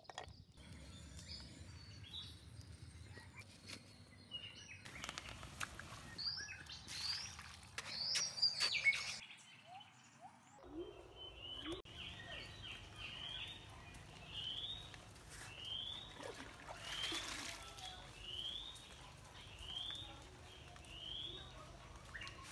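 Birds chirping, with one bird repeating a short rising chirp about every three-quarters of a second through the second half. A few short scraping noises sound among the calls.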